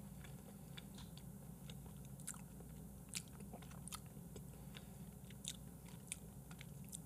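Faint chewing of raw beef yukhoe by one person, with scattered soft wet mouth clicks over a low steady hum.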